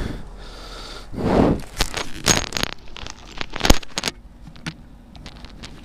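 Close handling noise: a rustle and scrape, then a quick run of clicks and knocks, loudest about three and a half seconds in, fading to faint scattered ticks.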